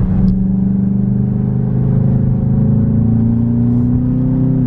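Cabin sound of a 2021 Volkswagen Jetta GLI's 2.0-litre turbocharged four-cylinder pulling under acceleration in sport mode. The engine note climbs slowly and steadily, then drops suddenly right at the end as the gearbox shifts up.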